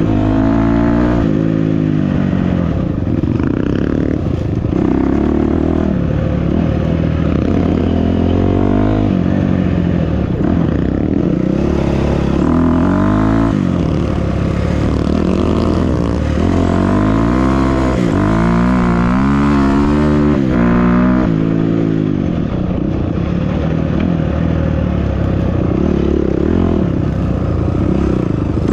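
Off-road vehicle engine running under load, its pitch climbing and dropping again and again as the throttle is opened and eased over the terrain.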